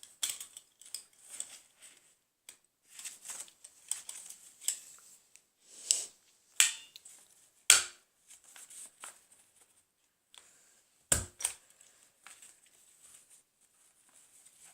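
Sheet of paper being handled and folded, rustling and crinkling in irregular bursts, with two sharp clacks about halfway through and again about three seconds later.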